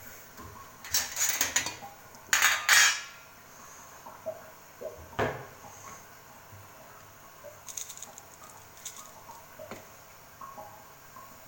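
Metal kitchen utensils and a saucepan clattering and scraping in short bursts, loudest a couple of seconds in, then lighter ticks and taps.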